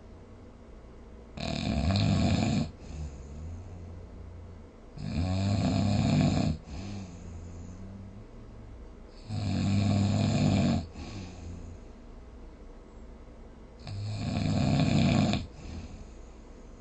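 A person snoring: four loud snores about four to five seconds apart, each lasting about a second and a half, with quieter breathing between them.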